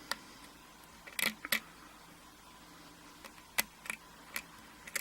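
Faint, sharp metallic clicks and taps of a lock pick on the pins of a Schlage pin-tumbler lock during single pin picking, coming singly and in small groups about seven times. The pick is probing a pin that wants to move but won't set.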